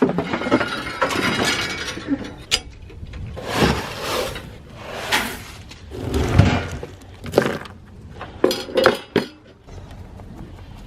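Clinking and clattering with several sharp knocks as a goat clambers up onto a milking stand and is handled there.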